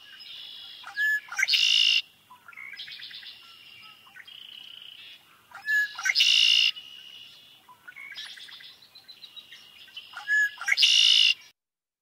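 Red-winged blackbird singing its conk-la-ree song three times, evenly spaced. Each song is a few short, sharp notes ending in a loud, harsh trill, with softer calls in between.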